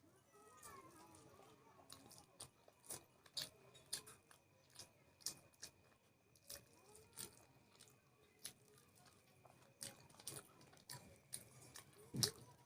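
A person chewing and biting food, faint crunches and mouth clicks at an irregular pace of about one or two a second.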